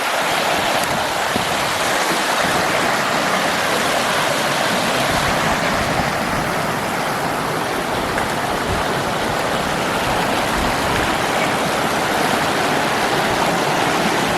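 Rushing water of a forest stream, a steady, even rush.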